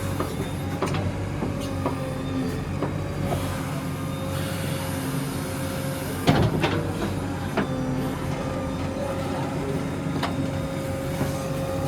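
JCB 3DX backhoe loader's diesel engine running steadily, with scattered metallic knocks and a loud bang about six seconds in.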